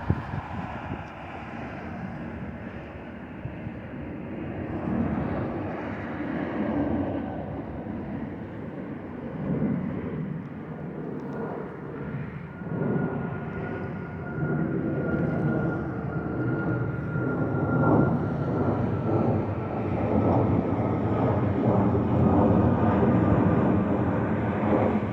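Boeing 757-200 freighter's Rolls-Royce RB211-535 turbofans at takeoff power, a jet rumble that grows louder. About halfway in a high RB211 whine comes through and slides slightly lower in pitch before fading.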